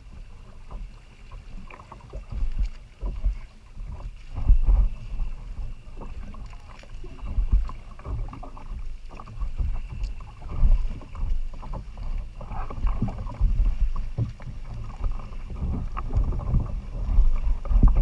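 Wind buffeting an action camera's microphone on a kayak at sea, with water lapping and slapping against the hull. The sound comes as a low, uneven rumble that swells and fades in gusts.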